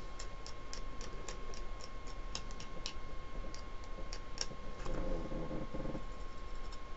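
Fast, regular ticking, about three ticks a second, over a faint steady whine.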